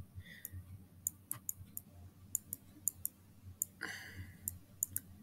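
Computer mouse buttons clicking irregularly as freehand strokes are drawn, a few sharp clicks a second with uneven gaps.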